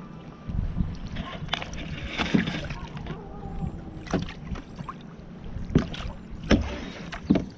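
Wooden canoe paddle strokes: the blade dipping and splashing beside the canoe, with irregular sharp knocks about once a second, over a low rumble of water against the hull.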